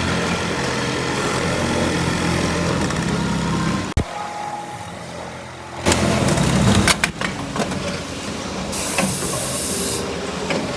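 Automatic pocket sewing machine running with a steady mechanical hum, broken off sharply about four seconds in. Rapid clattering follows around six to seven seconds, and a hiss of air lasts about a second near the end.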